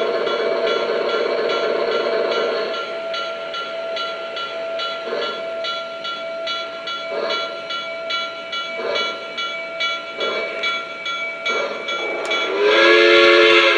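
Lionel Legacy O-scale Pennsylvania Railroad B6sb steam switcher's onboard sound system chuffing steadily at about three beats a second, with a hiss in the first few seconds. Near the end it blows a loud multi-tone steam whistle.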